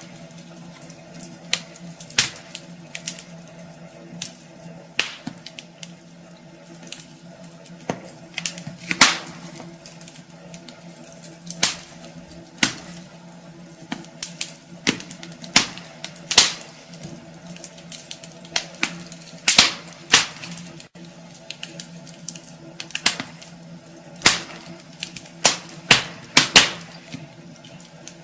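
Wood fire burning in a fireplace, with irregular sharp crackles and pops over a steady low hum.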